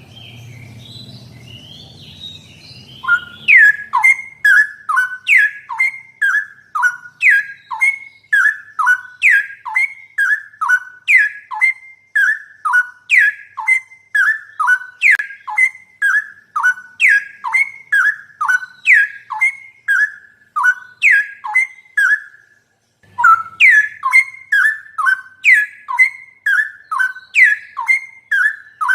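Straw-headed bulbul (cucak rowo) song: loud, clear whistled phrases of notes sliding down in pitch, repeated a little over once a second. A softer start leads into them about three seconds in, and there is a short break a few seconds before the end.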